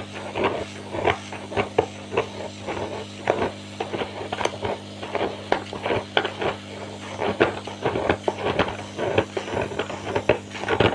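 Knife blade scraping heat-softened glue from around a 15-inch bass speaker's voice coil in quick, irregular strokes, over the steady hum of an 850-watt hot-air blower (heat gun) softening the glue.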